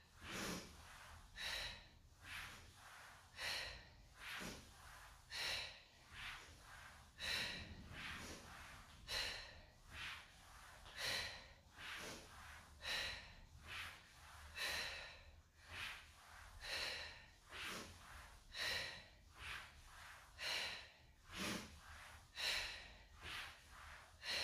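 A woman breathing hard under exertion while holding a plank: regular, breathy exhalations a little more than a second apart.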